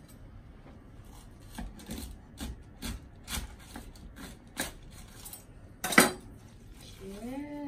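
A chef's knife sawing lengthwise through a whole pineapple on a wooden cutting board, a series of short rasping strokes about two a second through the rind and core. About six seconds in comes a sharp clack, the loudest sound, as the knife is put down on the counter. Near the end there is a short rising voiced hum.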